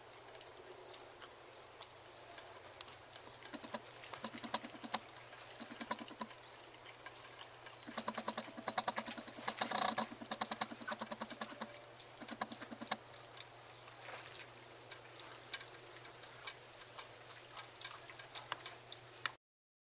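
A dog licking frozen dog ice cream from its bowl: several runs of quick, rapid clicking licks, the busiest around the middle, with scattered single clicks between them. The sound cuts off suddenly just before the end.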